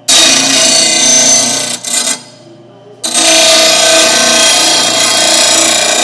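Oregon bench blade grinder's wheel grinding the edge of a steel lawn mower blade, a loud harsh rasp as the dull, nicked edge is ground back. The grinding breaks off about two seconds in, leaving only the motor's hum, and picks up again about a second later.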